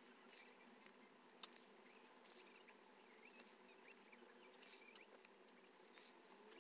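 Near silence: a faint steady hum with soft, scattered scratching of needle, thread and cord on cloth during hand-stitching, and one sharper click about a second and a half in.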